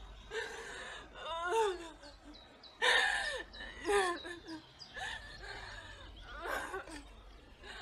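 A young woman sobbing: gasping breaths broken by several short, wavering cries that slide down in pitch.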